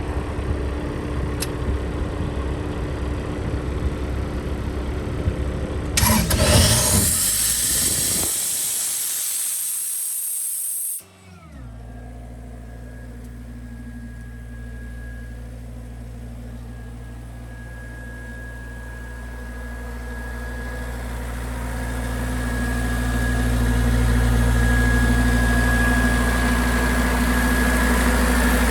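Atlas Copco XAS 87 KD mobile compressor's Kubota V1505 T four-cylinder diesel running steadily; about six seconds in a loud rush of air starts and falls away as the machine winds down. Then the engine runs again with a steady low hum and a thin high whine, growing louder as it speeds up.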